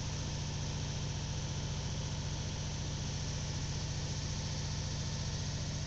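Steady low mechanical hum of a motor running at an even idle, with a fast regular pulse.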